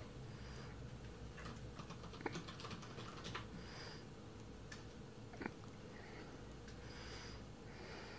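A cinnamon conure biting and chewing a strawberry held on a fork: faint, irregular small clicks and soft mouthing sounds of its beak working the fruit.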